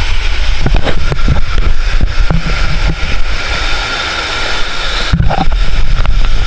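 Rushing water from a waterfall pool with a heavy rumble of wind buffeting on the microphone, broken by frequent knocks and bumps from the camera being handled. It eases off slightly around the middle.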